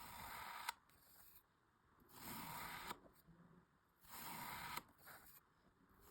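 A knife slicing through kinetic sand: three soft scraping strokes about two seconds apart, each under a second long.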